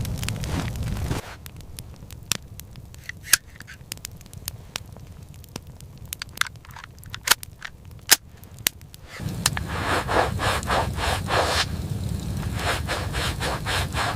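Rhythmic crunching and scraping, which drops after about a second to a quieter stretch of sharp, scattered crackles and pops. About nine seconds in, the rhythmic crunching comes back at two to three strokes a second.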